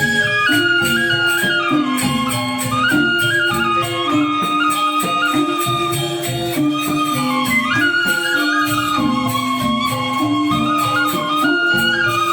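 Balinese gamelan angklung playing continuously: four-tone bronze reyong and bamboo grantangan work through a stepping melody over a dense stream of rapid struck notes.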